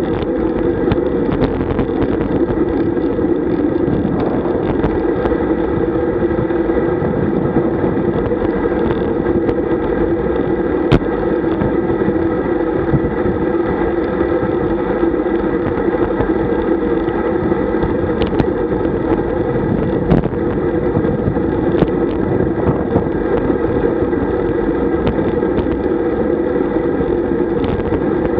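Steady wind rush and road noise on a road bike's handlebar camera at speed, with a few faint clicks.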